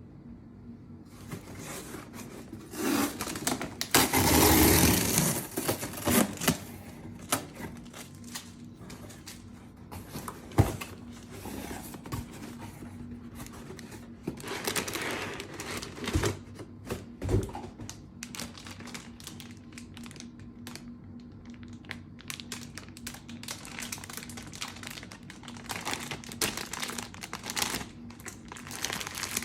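Packaging being opened and handled during a baseball glove unboxing: irregular crinkling and rustling, loudest in a long burst about four seconds in, with a few sharp knocks. A faint steady hum runs underneath.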